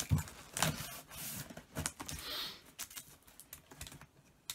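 Packing tape on a cardboard box being cut with a utility knife and peeled back by hand: scattered sharp clicks, scrapes and rustles of tape and cardboard, with a short scraping rip about two seconds in.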